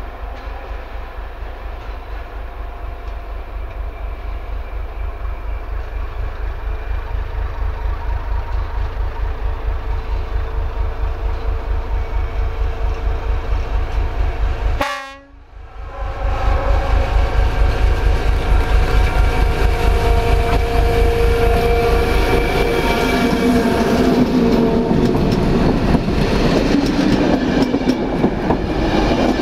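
Class 749 diesel-electric locomotive approaching with its diesel engine throbbing steadily, growing louder as it nears. After a brief drop-out about halfway, it returns louder with wheel and rail noise from the passing measuring car.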